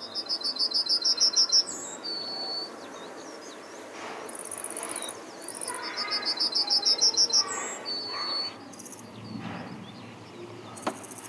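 A songbird singing twice: a fast run of about ten repeated high notes, growing louder, each run ending in a longer, lower note. Short high buzzy chirps, like insects, sound in between.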